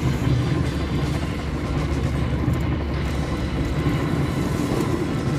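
Fishing boat's engine running with a steady low drone as the net is hauled in.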